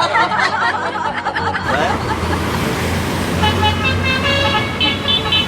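A telolet bus horn playing its multi-note tune, short tones stepping in pitch, from about three seconds in over a steady low engine hum. In the first second and a half there is a different wavering pitched sound, cut off abruptly.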